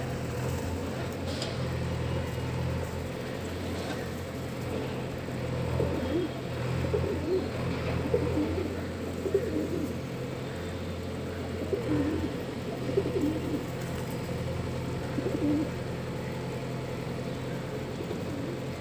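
Feral rock pigeons cooing, a series of low wavering coos bunched in the middle stretch, over a steady low hum.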